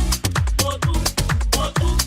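Electronic dance music from a DJ set, with a steady four-on-the-floor kick drum at about two beats a second and crisp hi-hats between the kicks.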